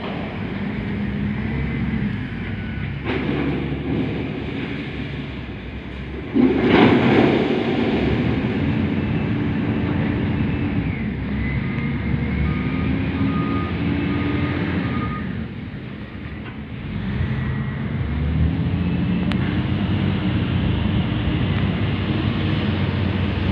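Kalmar reach stacker's diesel engine running and revving up and down while it handles a tank container on a freight wagon, with a sudden louder surge about six seconds in. An intermittent high beep sounds for a few seconds mid-way.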